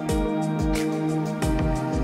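Background music with a steady beat: sustained chords over a regular low kick drum.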